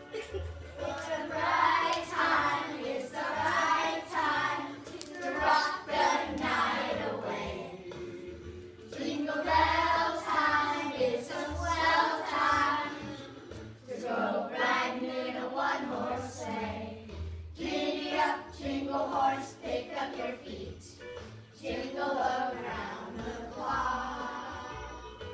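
A group of children singing a song together in phrases, with some low thuds underneath.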